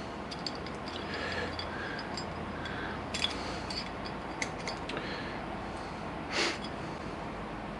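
Faint, scattered clicks and taps of a Tokico six-pot brake caliper half being handled while a greased rubber oil seal is worked into its piston bore, with one breath through the nose about six seconds in.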